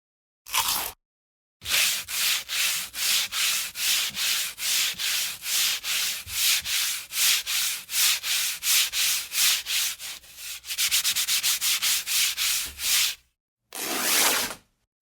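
Back-and-forth abrasive rubbing strokes, a scratchy hiss at about three strokes a second. Near the end they quicken to about six a second, then two slower strokes follow.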